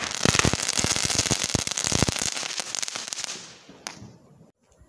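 A firework goes off close by in a rapid run of sharp crackling pops and bangs over a hiss. It is dense for about two seconds, then thins and fades out, with one last pop near the end.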